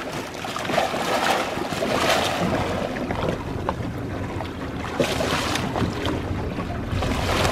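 Hooked dorado (mahi-mahi) thrashing and splashing at the water's surface beside the boat's hull, in several brief surges over a steady wash of sea and wind noise on the microphone.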